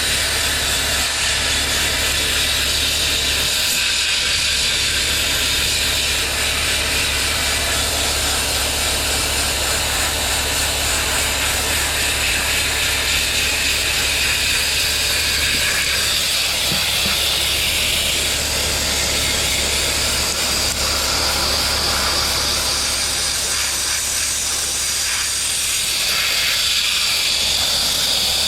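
Sandblaster blasting the inside of a steel tractor rim: a loud, steady hiss of compressed air and grit, with a constant low hum beneath it.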